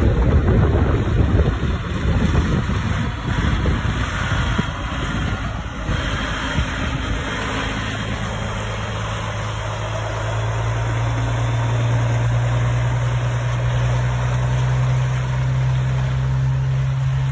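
Caterpillar E-model (3406E) diesel of a Peterbilt 379 semi running, rougher at first as the truck moves, then settling into a steady idle with a low, even hum about ten seconds in.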